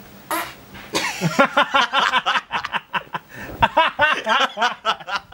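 Laughter: a run of quick, repeated voiced bursts starting about a second in, after a brief rush of noise.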